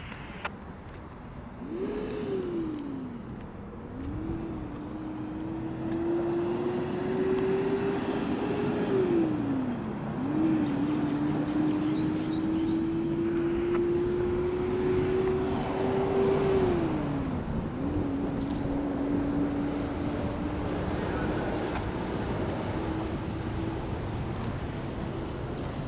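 A road vehicle accelerating: its engine note climbs in pitch and drops back sharply at each gear change, about three, ten and seventeen seconds in. Near the end it settles into a steadier, slowly rising note.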